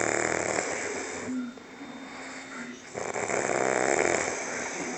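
A very drunk man asleep, snoring: one long snore dies away about a second and a half in, and the next starts about three seconds in, with quieter breathing between them.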